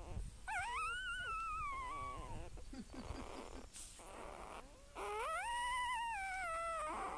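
A cat giving two long, drawn-out meows, one starting about half a second in and the other about five seconds in. Each rises in pitch, holds, then falls away.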